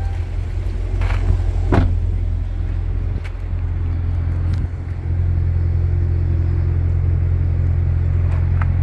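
2021 Chevrolet Corvette Stingray's 6.2-litre V8 idling with a steady low hum. A few knocks and clicks sound over it, the sharpest about two seconds in.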